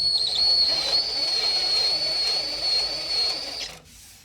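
A small electric motor whining at a steady high pitch, which cuts off after about three and a half seconds.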